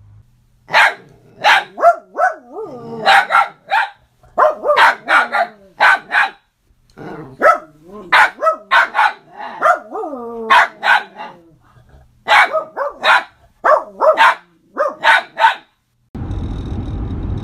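A Pembroke corgi puppy and a small long-haired dog barking at each other, sharp barks in quick runs with growling between them. About a second before the end, a steady car rumble takes over.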